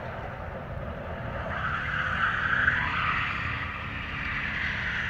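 A car's engine and tyre noise on the road, swelling about two to three seconds in and easing off, over a low rumble.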